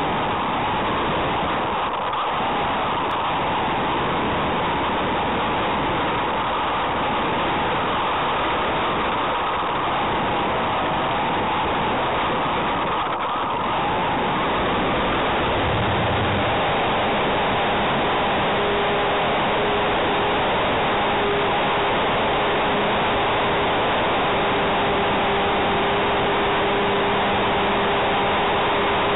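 Motor and propeller of a Hype Cessna 400 Corvalis RC model plane, heard through its onboard camera together with wind rush, during the takeoff run and climb. It makes a dense, steady whir, and about halfway through a steady whine comes in on top.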